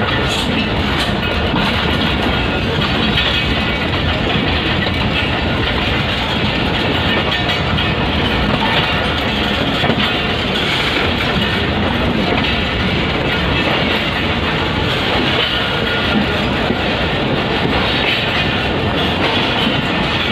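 Passenger train rolling along a station platform, heard from an open doorway of one of its coaches: a steady, even running noise of the wheels on the rails.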